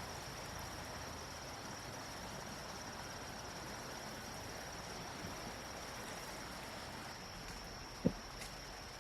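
Insects chirring in one steady, unbroken high tone over a faint background hiss. A single low thump comes about eight seconds in.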